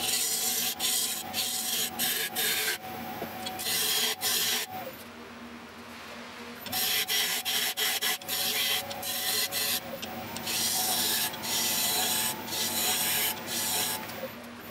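Turning tool cutting the outside of a wooden bowl spinning on a lathe: a hissing, scraping cut that stops and starts several times, with a longer pause about five seconds in, over the steady hum of the lathe running.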